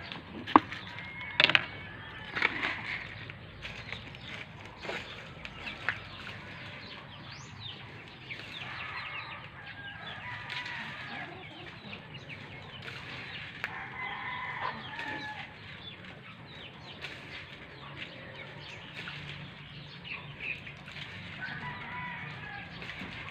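Domestic chickens clucking and calling in a coop, many short calls throughout. A few sharp knocks sound in the first several seconds, the loudest about a second and a half in.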